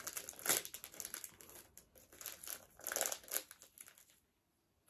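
Plastic snack wrapper crinkling in irregular bursts as it is handled and opened, stopping about four seconds in.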